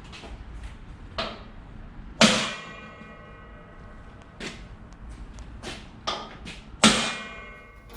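Hammer tapping a steel transfer punch to mark hole positions: several light taps and two hard blows that ring out metallically for about a second.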